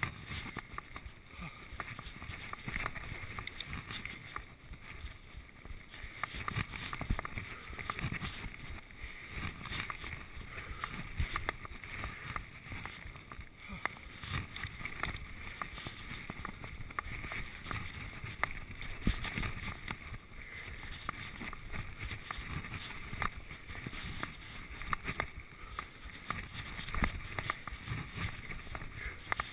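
Giant Trance 1 full-suspension mountain bike ridden over a bumpy grass and dirt trail: a steady rumble of tyres and wind with frequent knocks and rattles as the bike hits bumps.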